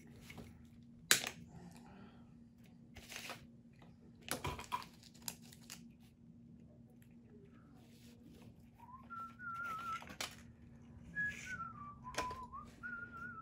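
Sharp clicks and clatter of hand tools (wire cutters and crimpers) and a wire spool set down on a workbench, the loudest about a second in. In the second half a man whistles a few notes of a tune softly, over a steady low hum.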